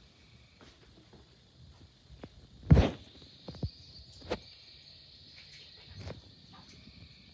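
Kittens scuffling and pouncing on a carpet-covered cardboard scratcher, making a handful of soft thumps and knocks, the loudest about three seconds in. Under them runs a steady high chirring of insects.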